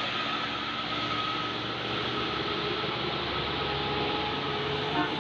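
Tour bus engine and road noise as a bus climbs a steep hill, a steady drone. A short, sharp sound breaks in about five seconds in.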